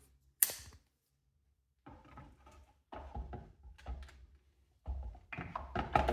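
Hands handling an e-bike's main battery against its frame mount: one sharp click about half a second in, then a pause, then a series of knocks, thuds and rubbing as the battery is shifted and pressed to make it connect.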